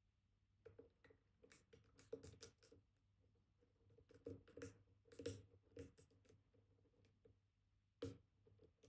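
Faint irregular clicks and scratches of a pick working pins in a Kaba Titan Combi dimple lock while a tensioner holds the core.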